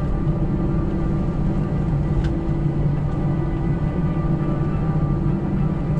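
Jet airliner cabin noise while taxiing: the engines' steady low drone with several steady tones in it, heard from inside the cabin, and a single faint click about two seconds in.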